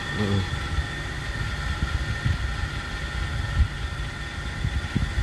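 Toyota Kijang LGX's 7K petrol four-cylinder carburettor engine idling cold, with a tek-tek ticking from the engine. The owner puts the ticking down to the oil not yet having risen after a week without running.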